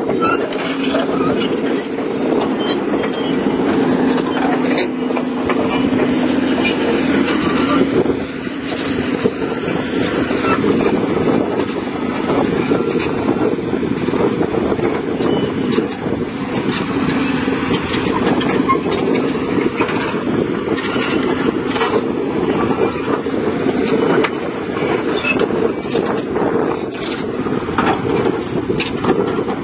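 Komatsu PC200 hydraulic excavator traveling on its steel crawler tracks up onto a self-loader truck's deck, its diesel engine running steadily under a constant clatter of track links knocking.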